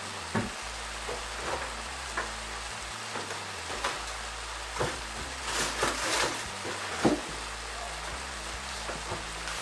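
Red cabbage, peppers and tomatoes stir-frying in a stainless steel pan: a steady sizzle with scattered pops and crackles, which come thickest around six seconds in.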